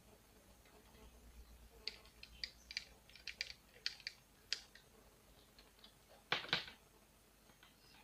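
A quick run of light clicks and taps, a dozen or so over about three seconds, then two louder clicks close together later on: a small screwdriver and the plastic-and-metal housing of a laptop cooling fan being handled as the fan is fitted back in place.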